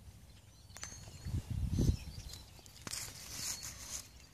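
Footsteps rustling through dry grass and reeds, with a low rumble around a second and a half in. Faint bird chirps.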